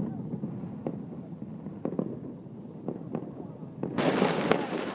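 Fireworks bursting: a string of separate bangs, about six of them. Near the end a louder, dense crackling noise sets in over them.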